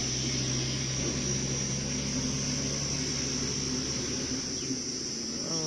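A steady, even engine drone that fades near the end, over the constant high-pitched chirring of insects.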